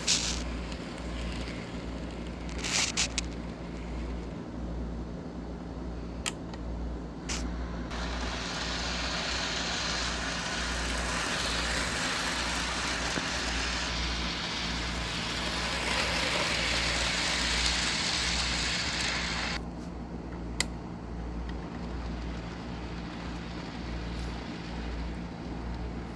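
Model trains running on the layout: a steady low motor hum with a pulsing rumble of wheels on track, and a few sharp clicks. A louder hiss rises about eight seconds in and cuts off suddenly after about twelve seconds.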